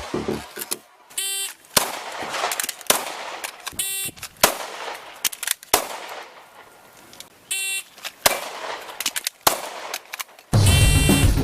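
Pistol shots fired in a fast shooting drill, single shots and quick pairs spread unevenly across the stretch. Music with a beat comes in near the end.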